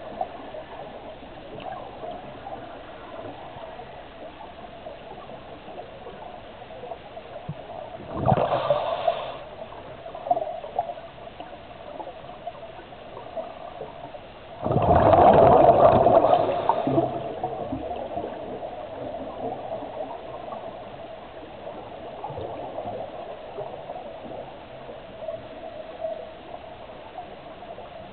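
Underwater sound at a scuba diver's camera: a steady hiss and hum, broken by two bursts of exhaled bubbles from the diver's regulator, a short one about eight seconds in and a longer one about fifteen seconds in.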